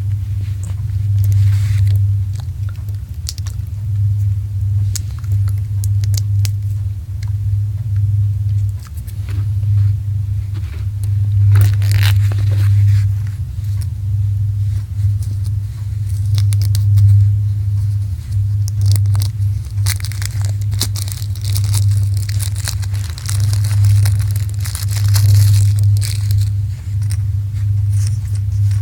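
Packaging and game components being handled: crinkling, tearing and scraping with many small clicks, busiest in the second half, over a steady low electrical hum.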